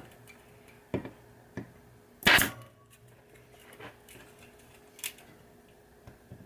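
Pneumatic staple gun firing once, a sharp shot about two seconds in, stapling wire down to a pinball playfield. Several lighter clicks and taps of handling come before and after it.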